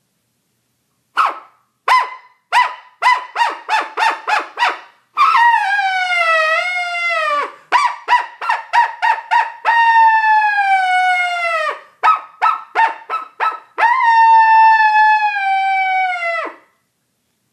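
Power Howler open-reed coyote call blown through a string of short yips and barks, then three long howls that fall in pitch at the end, each broken up by more quick yips.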